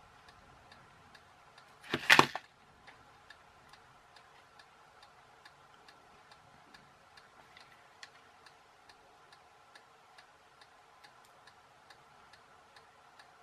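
A reel of solder wire set down on the cutting mat with one loud knock about two seconds in. Behind it, steady light ticking, about two or three ticks a second, and a faint steady hum.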